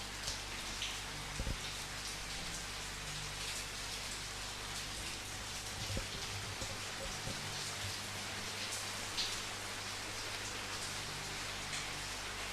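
Steady rain falling, with single drops tapping now and then and a couple of brief dull low thumps.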